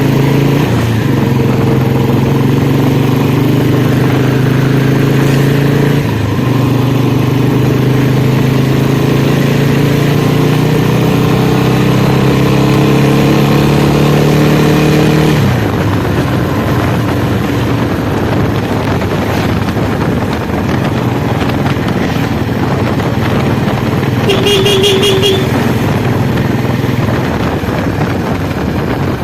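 2008 Royal Enfield Bullet's single-cylinder engine running under load, its pitch climbing slowly for about fifteen seconds. About halfway through the steady engine note drops away into a rushing noise. A short horn beep sounds near the end.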